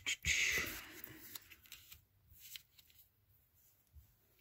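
Tarot cards being handled and slid off the deck: a brushing rustle of card against card in the first second, then a few faint light clicks as cards are moved.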